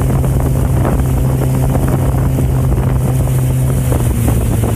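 Mercury outboard jet motor running steadily at cruising speed, its engine note holding one pitch, with rushing water and wind on the microphone.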